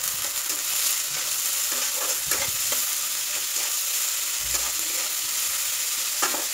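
Onion with bitter-gourd peel and pulp sizzling in mustard oil in a metal wok, a steady hiss, while a metal spatula stirs and scrapes the pan with a few sharper scrapes.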